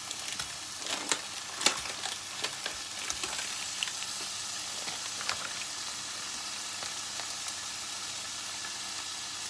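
Beef patties sizzling as they fry in a pan: a steady hiss, with a few sharp clicks and crackles in the first two to three seconds.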